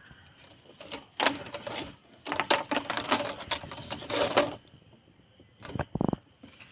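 Plastic pipes and T-fittings clicking and rattling in quick runs as the frame's roof pipes are handled and pressed into the tees, with a short squeak near the end.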